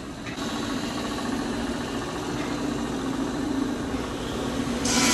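Steady mechanical hum of a running motor. Near the end a loud rasping hiss starts suddenly.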